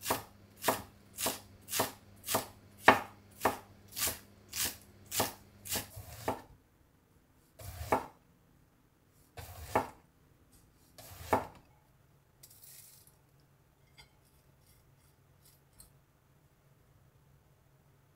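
Kitchen knife cutting on a wooden cutting board. First comes a quick, even run of about a dozen chops, about two a second, shredding cabbage. Then come three slower single cuts through eggplant, and only faint light taps in the last few seconds.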